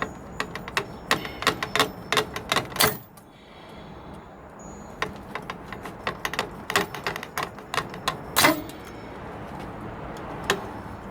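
A knife cutting through the plastic frame of a socket set: quick clusters of sharp plastic clicks and snaps. They pause briefly about three seconds in, then start again, with one louder snap a little past eight seconds.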